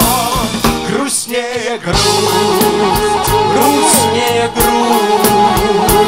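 A live pop band playing an instrumental passage: a drum kit and bass keep a steady beat under a wavering lead melody. The drums and bass drop out briefly about a second in, then come back.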